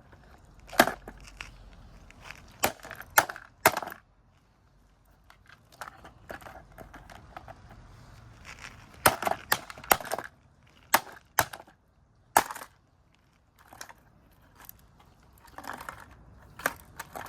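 A Timex radio alarm clock's casing is struck hard again and again. The sharp cracking blows come in uneven groups of one to three, with pauses of a few seconds between them, as the clock is smashed open.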